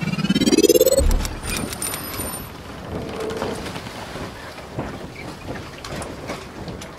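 Intro sound effect: a rising sweep climbs in pitch for about a second and ends in a low boom, followed by a steady hissing wash with faint high tinkles and scattered clicks.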